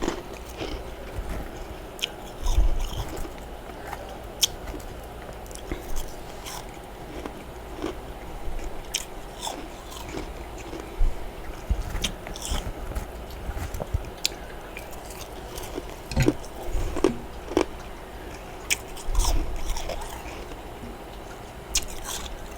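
Freezer frost being bitten and crunched: irregular crisp crunches, a second or so apart and some in quick clusters, over a steady background noise.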